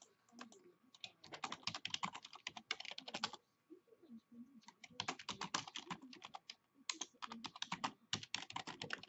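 Typing on a computer keyboard: three quick runs of keystrokes, the first about a second in, the second around five seconds in, the third from about seven seconds on, with short pauses between.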